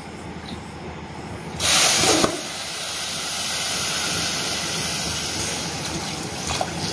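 Water poured from a cup into a steel pot of dry sugar. A short, loud splashing hiss comes about one and a half seconds in, then a steady pouring hiss runs for about four seconds and eases off near the end.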